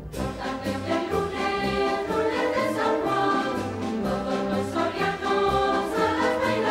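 A charanga brass band playing in the street with a large crowd singing along to a steady beat.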